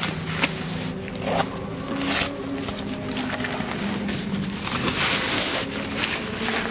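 Tent stuff sack of synthetic fabric rustling and scraping as it is handled on gravel, in irregular bursts, with a longer burst about five seconds in.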